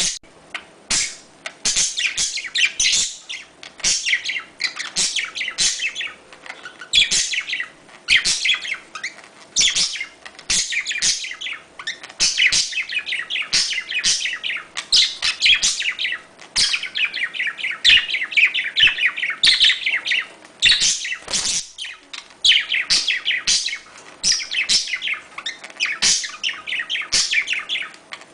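Budgerigars warbling and chattering almost without a break: the fast, twittering song that budgies give in breeding condition, known as the budgie mating call.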